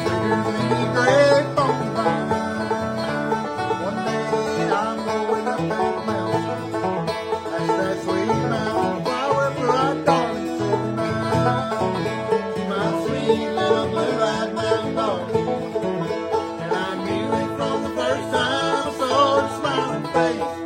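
Bluegrass instrumental break: a banjo picking a fast run of notes over guitar accompaniment, with no singing.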